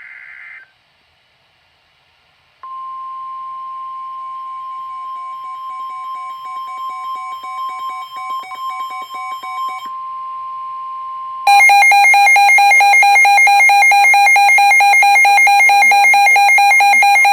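NOAA Weather Radio alert sequence: the tail of a burst of SAME digital header data, then after a short pause the steady 1050 Hz warning alarm tone for about nine seconds, with a quieter beeping alert from a receiver underneath. About eleven seconds in, a weather alert radio's own loud, rapidly pulsing alarm starts, which means the receiver has been set off by a warning.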